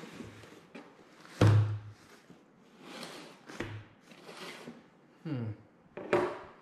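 Folded heavy fabric seat covers handled out of a cardboard box onto a wooden table: a heavy thunk about a second and a half in, then shorter rustles and scrapes of fabric and cardboard.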